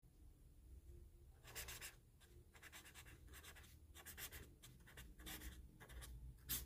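Faint scratching of a felt-tip pen nib across paper, writing a cursive signature in a series of short strokes that begin about a second and a half in, with one sharper stroke near the end.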